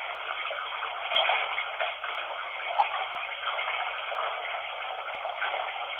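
Steady rush of running water, thin and tinny with no deep or high end, as if heard through a small speaker, with a few faint clicks scattered through it.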